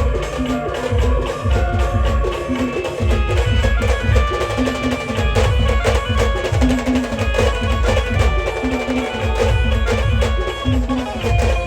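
Maharashtrian village band playing loud instrumental folk music: held melody notes over heavy, repeating drum beats and percussion.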